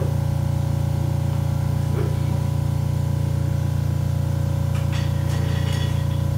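A loud, steady low hum that does not change in level or pitch.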